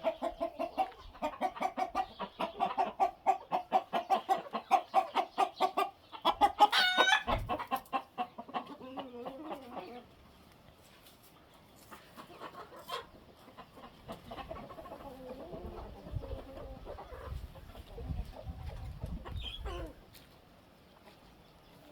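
Chickens clucking, rapid and loud for the first several seconds, with one loud pitched call from a bird about seven seconds in. After about ten seconds the clucking drops to a faint, low murmur.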